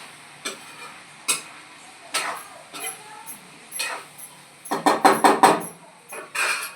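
Metal kitchen utensils and dishes clinking and knocking against each other in a string of separate sharp knocks, with a denser, louder clatter about five seconds in.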